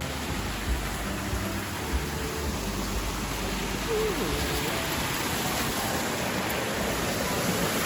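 Waterfall and its stream rushing steadily, a dense even noise of falling water.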